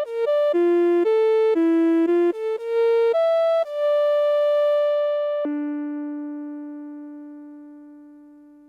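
Suiko ST-50 koto synthesizer playing a single-note melody of short, steady notes. About two-thirds of the way in it settles on a lower note that fades slowly away.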